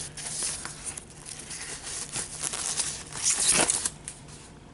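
Plastic packaging crinkling and rustling as a tablet is handled and taken out of its wrapping, with a louder rustle about three seconds in.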